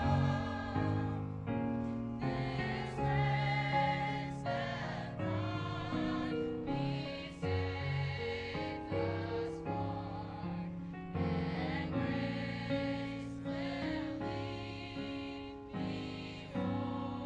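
Youth gospel choir singing sustained chords in harmony, with vibrato in the upper voices, over a keyboard playing held bass notes that change about every second.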